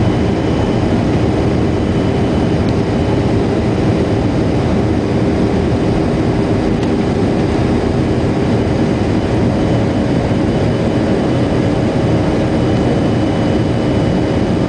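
Steady cabin noise inside a Boeing 737 airliner climbing after takeoff: the jet engines and rushing air run evenly, with a few faint steady hums on top.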